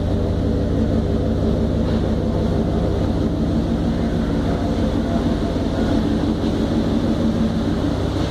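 1992 Chevrolet 1500 pickup's 4.3-litre V6 idling steadily.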